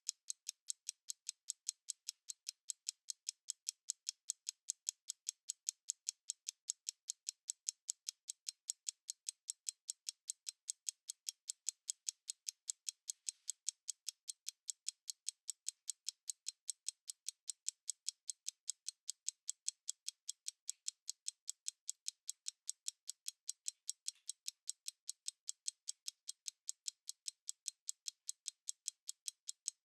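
Stopwatch ticking: thin, even ticks at about four a second, in a steady, unbroken rhythm.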